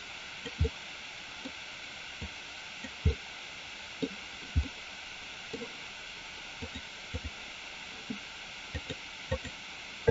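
Steady background hiss with about twenty soft, low knocks at irregular intervals.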